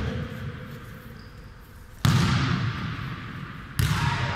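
A futnet ball being struck during a rally: two sharp ball impacts, about two seconds in and again near the end, each echoing through a large sports hall.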